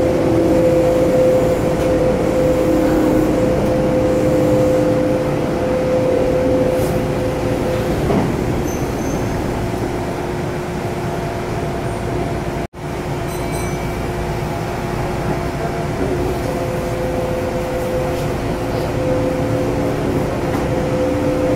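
Kintetsu Shigi Line electric train running, heard from inside the car: a steady rumble of the wheels on the rails with a two-note hum that fades out about a third of the way in and comes back near the end. The sound cuts out for an instant about halfway through.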